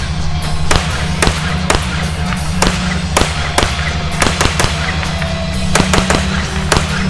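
Rifle shots firing in quick succession at irregular intervals, about one sharp crack every half second to a second, over background music with a heavy bass.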